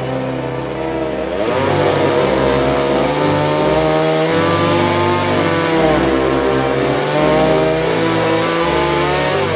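A chainsaw running and revving up and down, its pitch rising and falling several times, starting about a second in and stopping near the end. It is heard over instrumental Christmas music.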